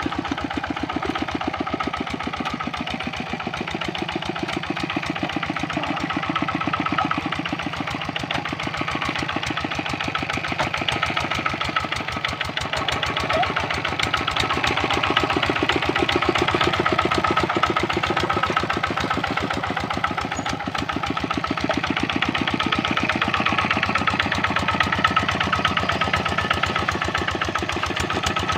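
Kubota RD65 single-cylinder diesel engine on a two-wheel hand tractor running steadily under working load, with a rapid, even firing beat that swells slightly now and then.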